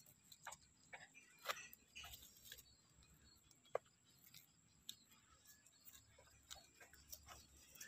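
Faint, irregular clicks and ticks, a few a second, over near silence, with a faint steady high-pitched whine underneath.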